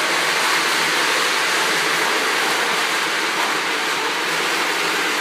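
Lionel O-scale model train running on the layout track: a steady whirring rush of motor and wheels.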